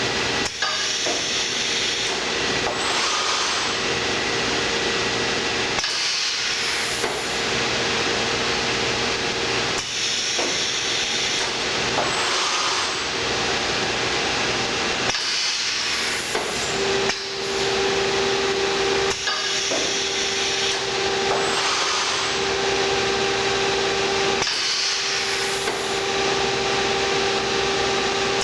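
Sencorp 2500 roll-fed thermoformer running in continuous cycles: a steady mechanical din with a faint hum, broken every few seconds by short breaks and hisses of air from its pneumatic cylinders and valves.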